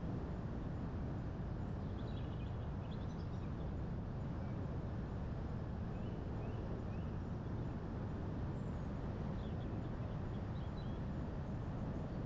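A steady low rumble of wind, with faint, brief bird chirps a few seconds in, in the middle, and again near the end.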